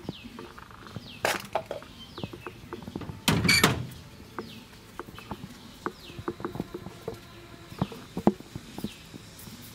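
Scattered small clicks and knocks of hands handling dough over a bamboo tray, with a louder rustling burst about three and a half seconds in. Behind them, a bird gives short falling chirps about once a second.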